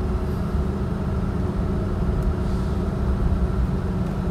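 2003 Mitsubishi Pajero V33's 6G72 V6 engine running steadily at low speed, heard from inside the cabin as a low, even rumble.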